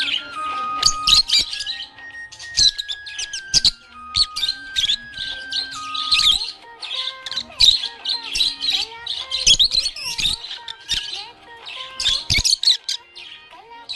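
Budgerigar chirping and warbling in quick, busy bursts, over background music whose held notes step up and down in a simple tune.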